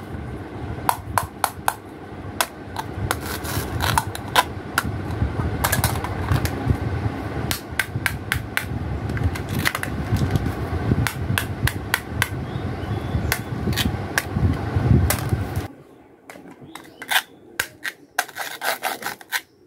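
Hard plastic and wooden toy food pieces being handled and cut, giving many sharp, irregular clicks and taps. A low rumble runs underneath and stops suddenly about sixteen seconds in, leaving only the clicks.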